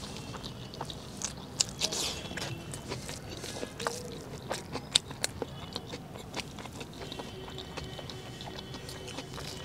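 People eating chicken curry and rice by hand from steel plates: chewing, with fingers mixing and scraping rice against the metal plate. Irregular small clicks and ticks throughout, the sharpest about a second and a half in, at two seconds and at five seconds.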